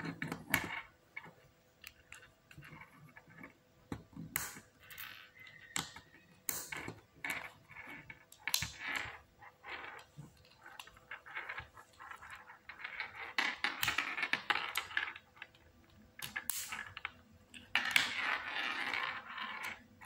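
Lego Technic plastic parts, an L motor and its cable being handled and fitted together: irregular clicks and knocks of plastic on plastic and on the desk, with stretches of rustling.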